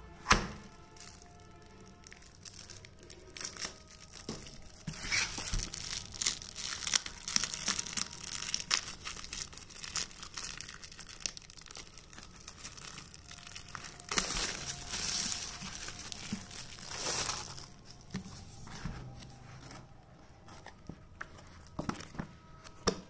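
Plastic shrink-wrap being torn open and peeled off a paperback book, crackling and crinkling in long bursts. A sharp knock sounds about a third of a second in, as the book is handled against its cardboard box.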